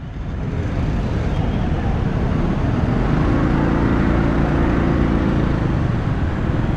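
Heavy motorbike traffic heard while riding through it: a steady din of engines and road noise that swells over the first second, with a low engine drone standing out in the middle.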